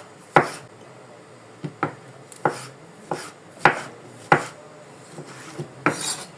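Kitchen knife chopping a tomato on a cutting board: separate sharp knocks at an uneven pace, about one every half second to a second.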